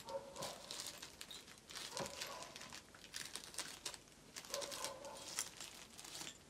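Plastic packaging crinkling and rustling as it is handled, in a string of short crackles and light clicks.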